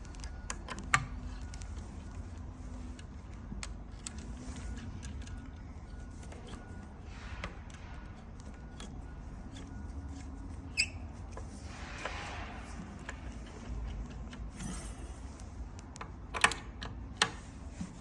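Scattered light clicks and taps of hands working a brake cable through a mechanical disc brake caliper, with a short rustling scrape about twelve seconds in. A low steady hum lies underneath.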